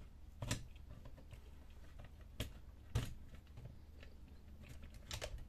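A few faint clicks and knocks of plastic fuser parts being handled as a laser printer's fuser film sleeve is fitted back into place, the sharpest about three seconds in, over a low steady hum.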